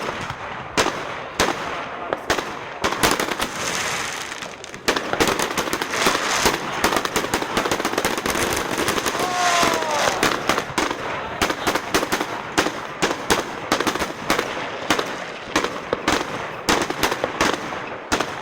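Fireworks going off in a dense barrage of sharp bangs and crackling. Midway through, a whistling firework glides down in pitch for about a second.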